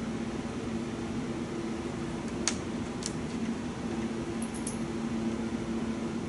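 Steady hum from the cooling fans of bench test equipment, with two sharp clicks about two and a half and three seconds in and a few faint ticks near five seconds as the cable and clip leads are handled.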